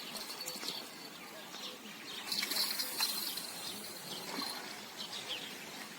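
Birds chirping, with a louder, busier run of song about two seconds in, over a faint steady outdoor background.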